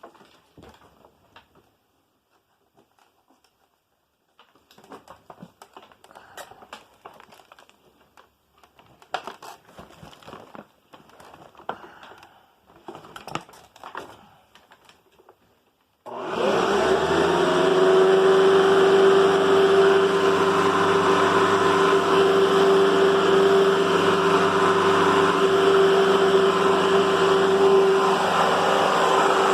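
Scattered clicks and rattles of parts being handled, then a Hoover upright vacuum cleaner switched on about sixteen seconds in, its motor spinning up quickly and running steadily with a strong, even tone.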